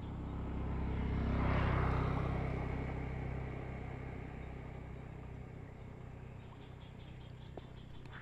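A motor vehicle's engine passing by, growing louder to a peak about two seconds in and then slowly fading away.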